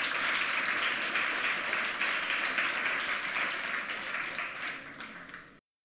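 Audience applauding: dense, steady clapping that thins out toward the end and cuts off suddenly.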